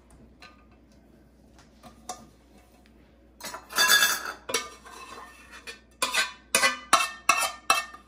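Metal ladle scraping and clanking against a pot while scooping chhena (curdled milk solids) out into a cloth-lined strainer. It starts about three and a half seconds in with a longer scrape, then a run of five or so sharp knocks near the end.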